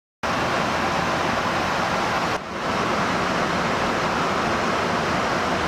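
Steady roaring rush of jet aircraft in flight, engine and airflow noise heard from the flying-boom tanker's boom-operator position, starting abruptly just after the start and briefly dipping about two and a half seconds in.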